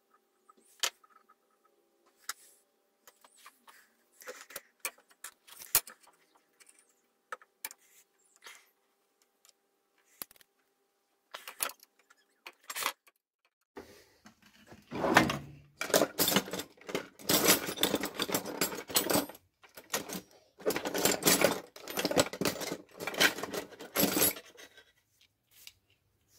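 Steel tool chest drawer pulled open, then loose metal hand tools rattling and clinking as a hand rummages through them, in two long spells with a short break between. Before that, only sparse small clicks and knocks.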